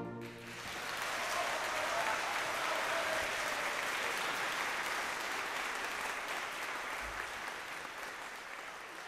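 Audience applause that swells over the first second after the wind band's final chord cuts off, then holds steady and slowly fades near the end.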